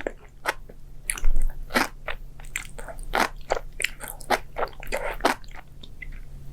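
A person biting and chewing crunchy food, a dense irregular run of sharp crunches that thins out near the end.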